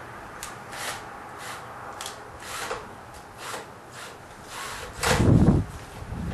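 Hand work on a hole in a leaking barrel: a series of short scraping or rubbing strokes about one to two a second, then a louder, heavier knock about five seconds in.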